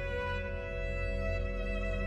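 Slow, sad film-score music of bowed strings: a violin over held low notes, sustaining steady chords.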